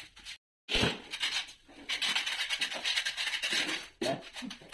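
Rubbing and scraping on a tiled counter top, a dense scratchy sound in many short strokes, after a brief dropout near the start.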